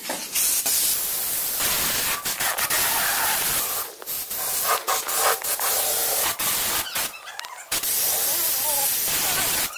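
Air-fed gravity-cup spray gun hissing as it sprays paint onto a motorcycle fuel tank, in long bursts with brief breaks where the trigger is let off, and a longer pause about seven seconds in.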